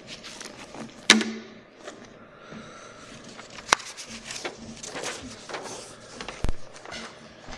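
Scattered light clicks and knocks of handling and movement in a quiet room. There are sharp knocks about a second in and near four seconds, and a low thump about six and a half seconds in.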